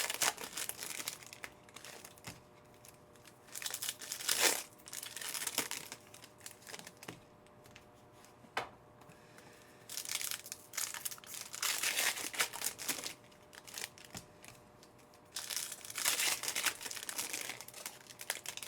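Foil trading-card pack wrappers crinkling and tearing in irregular bursts of a second or two, as card packs are ripped open by hand.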